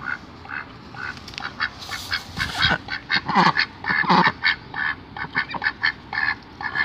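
Pekin ducks quacking in a rapid series of short calls, with two louder, drawn-out quacks a little past three and four seconds in.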